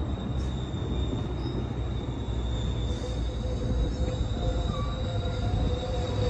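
Metrolink bilevel passenger coaches rolling past at close range: a steady low rumble of wheels on rail, with a thin, steady high squeal from the wheels.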